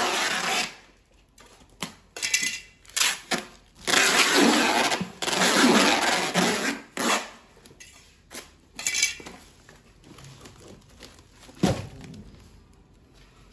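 Packing tape being pulled off the roll in a series of loud rips as it is wrapped around a box, with one sharp knock near the end.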